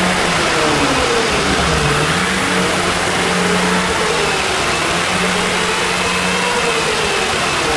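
Polaris Indy 488 fan-cooled two-stroke snowmobile engine running steadily near idle, its pitch wavering slightly and sagging briefly about two seconds in.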